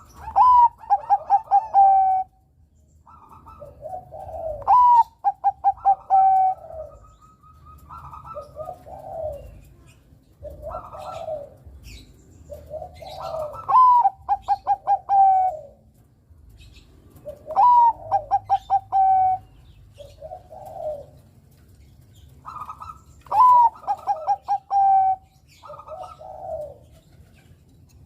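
Zebra dove (Bangkok-type perkutut) singing its cooing song. The phrases repeat every few seconds, each opening with low rising coos and ending in a rapid run of short clipped coo notes, with softer coo phrases in between.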